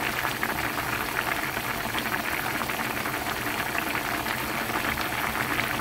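A pan of Korean soft tofu stew (sundubu-jjigae) boiling hard. It makes a steady bubbling with many small, quick pops.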